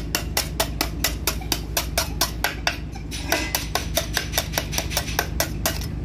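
Steel scraper chipping hardened concrete off the steel plate of a concrete cube mould: quick, even scraping strokes, about five a second.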